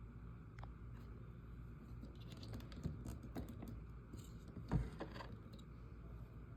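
Light clicks and taps of small objects being handled, with one louder knock about two-thirds of the way through, over a low steady hum.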